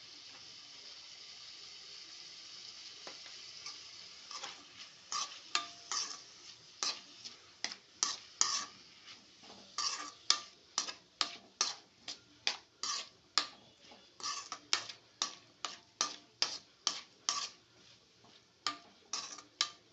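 Chopped onions, tomatoes and green chillies sizzling in a pan, then a spoon stirring them, scraping and knocking against the pan about twice a second from about four seconds in.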